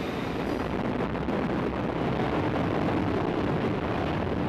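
Wind buffeting the microphone: a steady, loud rushing noise with a fluttering low end and no distinct engine tone.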